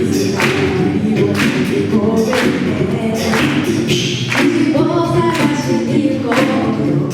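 A cappella group singing in close vocal harmony over a steady beat kept by vocal percussion, with a strong hit about once a second and lighter hits in between.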